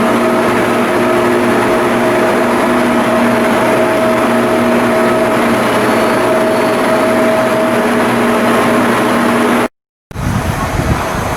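Loud, steady machine noise with a constant hum. Near the end it cuts off abruptly, followed a moment later by a rougher, uneven mechanical noise.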